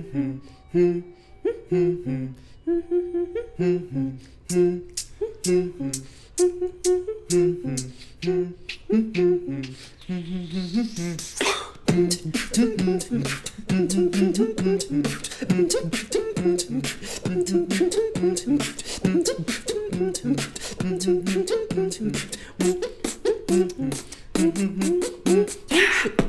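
Tag-team beatboxing: a hummed bass melody in short stepped notes over sparse clicks and snares. About eleven seconds in, a rising sweep leads into a denser, faster beat with many more hi-hat snaps.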